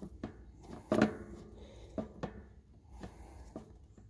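Hand grease gun being pumped into the grease fitting of a new mower deck spindle: a handful of irregular clicks and knocks, the loudest about a second in.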